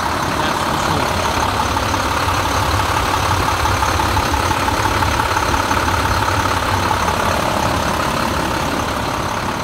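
International DT466 inline-six diesel engine of a CXT pickup running steadily, with a low pulsing rumble.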